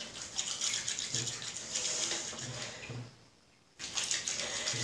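Wet hands rubbing and squishing a crushed soap fruit from a tree, working it into a lather; a steady wet rubbing noise that stops for about half a second a little past three seconds in, then starts again.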